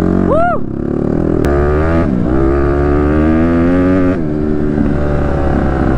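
Dirt bike engine under way on a rough trail, pitch climbing as it accelerates, with a short break near two seconds in like a gear change, then dropping suddenly about four seconds in as the throttle comes off and running on lower.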